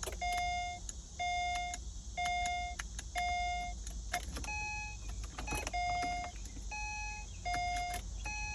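Car's electronic warning chime beeping about once a second, a steady repeated tone that alternates with a second, higher-pitched beep from about halfway through, with a few faint clicks. The 2011 Acura TL is not cranking or turning over at all.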